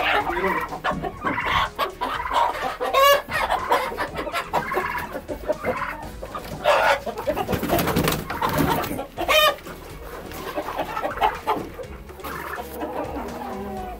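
Chickens clucking and squawking in alarm as roosters are caught by hand in a crowded coop, with two loud, rapidly repeated squawks about three seconds in and again at about nine and a half seconds.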